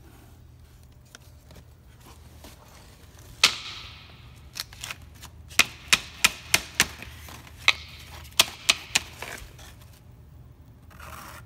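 Sharp, hard knocks from handling the removed dirty cabin air filter: one about three and a half seconds in, then about eight in quick succession over the next few seconds.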